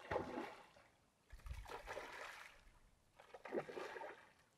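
Faint splashing of a hooked rainbow trout thrashing at the lake surface, heard as three soft, brief splashes.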